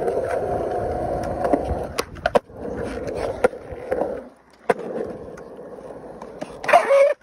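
Skateboard rolling over concrete, the wheels giving a steady rumble, with a few sharp clacks of the board about two seconds in and single clacks later. The rolling drops away briefly past the middle.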